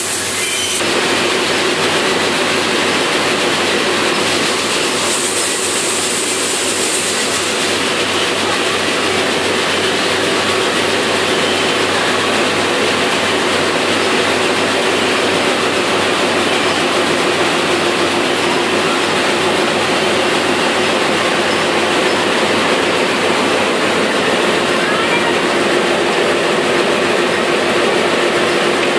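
Air-screen seed cleaner running steadily: a loud, dense, even machine noise from its shaking screens and drive, with a steady hum that comes in about a second in.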